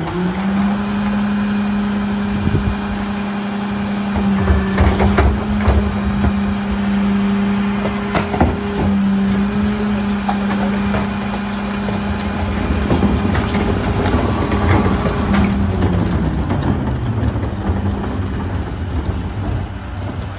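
McNeilus rear-loader garbage truck's engine held at raised revs while its hydraulic packer runs, with clanks and crunching of refuse being compacted. Near the end the revs fall back to idle as the packing cycle finishes.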